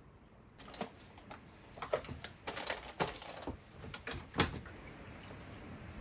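A string of irregular light clicks and knocks of small hard objects being handled, with one sharper knock about four and a half seconds in.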